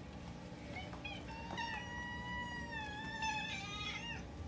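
Domestic cat meowing for its food: a long drawn-out meow starting about a second and a half in, running into a shorter, wavering meow near the end.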